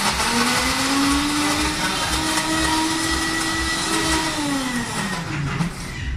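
Bar blender running to blend a frozen cocktail: the motor whirs up to speed just after the start, holds steady, then winds down and stops about five seconds in. A low, regular beat of background music runs underneath.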